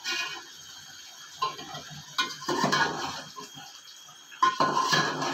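Slotted metal spoon scraping and knocking against an aluminium cooking pot as chicken and whole spices are stirred, in several short bursts of clatter.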